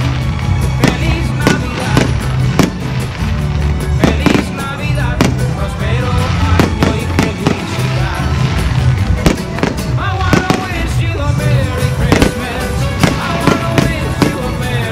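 Fireworks going off in irregular bangs, about one or two a second, over loud music with a steady bass line.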